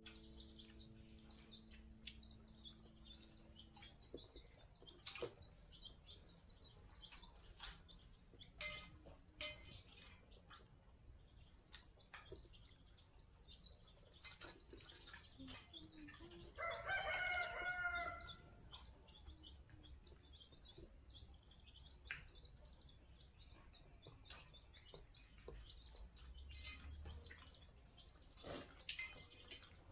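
A rooster crows once, about halfway through, in a single call of about a second and a half. Around it are quiet outdoor ambience and a few light clicks of dishes and cutlery.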